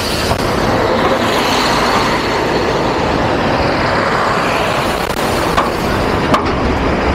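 City buses driving past close by: first an articulated bus, then a second bus, their engine and tyre noise loud and steady. Two short clicks come near the end.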